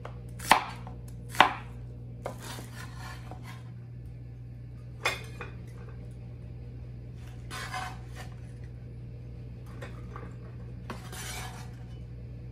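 Cleaver chopping through peeled onions on a plastic cutting board: two hard chops about a second apart near the start, then a few lighter knocks and short scrapes as the pieces are slid off and the cleaver is scraped across the board near the end.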